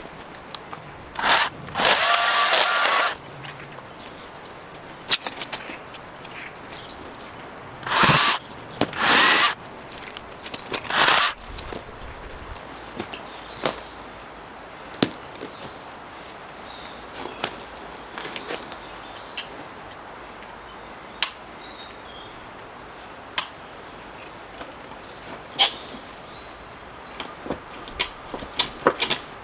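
Branches being cut and pulled down: several loud bursts of cracking and rustling wood in the first dozen seconds, then scattered sharp snaps of twigs.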